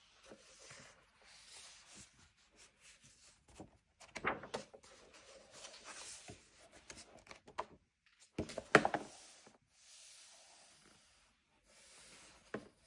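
Pages of a large hardback photo book being turned by hand: a few soft paper swishes and rubs, the loudest about two-thirds of the way through.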